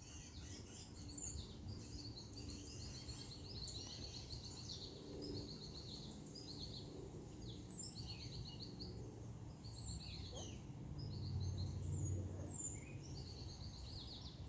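Songbirds chirping and trilling: many short, repeated high notes, several birds overlapping. Beneath them runs a low rumble that swells briefly about eleven seconds in.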